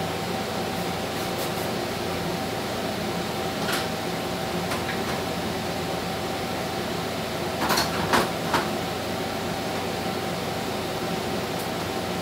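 A steady mechanical hum carrying one fixed tone runs throughout. About eight seconds in, a quick cluster of three sharp clicks is the loudest sound, with a couple of fainter single clicks a few seconds earlier.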